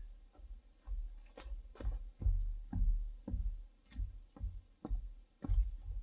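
A hiker's footsteps on a mountain trail, heavy thumps about two a second, picked up close by the walker's own camera.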